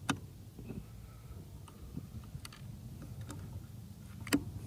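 Air Venturi Avenger PCP air rifle being handled between shots: light clicks, then one sharp metallic click a little over four seconds in, typical of the action being worked to load the next round. Under it runs a low, steady rumble.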